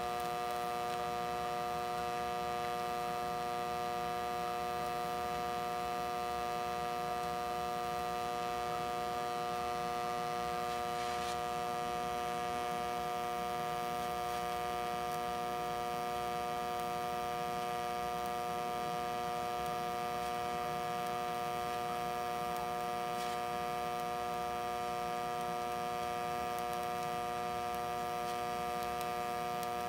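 Hobart TIG welder's arc burning steadily on steel tubing, a constant electrical hum with many even overtones that does not change.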